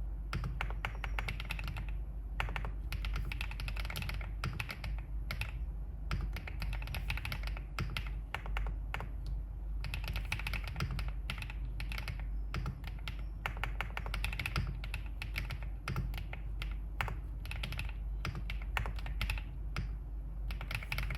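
Continuous typing on a Wave75 mechanical keyboard with an aluminium case and 青竹 (green bamboo) switches: rapid runs of keystroke clicks and clacks with brief pauses every few seconds.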